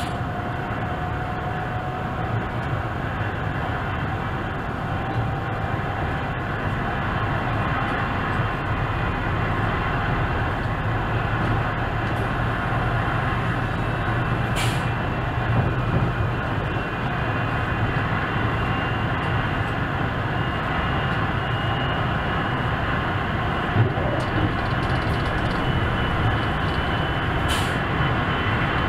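ÖBB class 4124 electric multiple unit running along the line, heard from the driver's cab: a steady rumble of the train in motion, with a faint rising tone in the first few seconds and two short sharp clicks, one about halfway through and one near the end.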